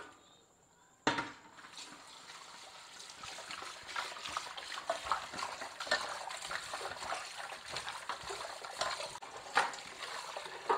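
Water sloshing and splashing as raw chicken pieces are washed by hand in a vessel of water. There is a sharp knock about a second in, then steady splashing with scattered clinks against the vessel.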